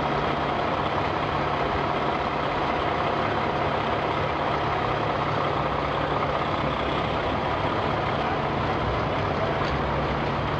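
Semi truck's diesel engine running steadily at low speed as the tractor-trailer pulls slowly through a turn, a low even hum with no revving.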